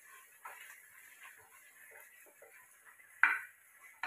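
Spatula stirring and scraping thick onion-paste masala in a pressure cooker: soft, irregular scraping strokes, with one much louder stroke about three seconds in.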